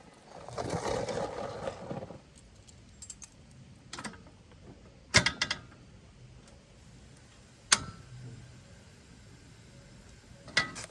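Handling noises: a rustle lasting about a second and a half, then a few sharp separate clicks or clinks spaced seconds apart.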